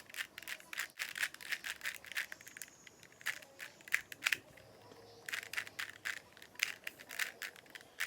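Plastic Rubik's cube being twisted by hand, its layers clicking and rattling in quick runs of turns, with a short lull about halfway through.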